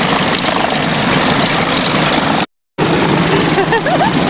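Radial piston engine of a taxiing North American T-6 Texan trainer running steadily at idle, with other warbird engines around it. The sound cuts out to silence for a moment about two and a half seconds in, then the same steady engine noise resumes.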